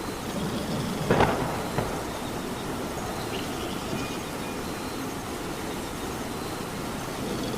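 Steady rain, with a short, louder sound about a second in and a smaller one just after.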